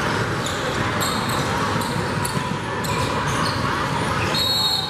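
Basketball game sound in a large gym hall: scattered thuds of a ball bouncing on the hardwood court over a steady background of voices and movement, with a high sneaker squeak about four and a half seconds in.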